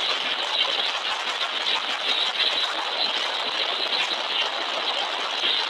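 Steady rushing road and wind noise of vehicles on the move, holding an even level throughout.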